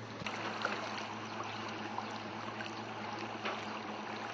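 Motorboat engine running with a steady low hum under the rush and splash of water along the hull.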